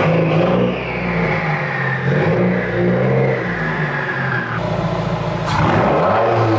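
Subaru WRX's turbocharged flat-four engine running at low speed as the car reverses into a garage, its exhaust note rising and falling, with a brief click about five and a half seconds in.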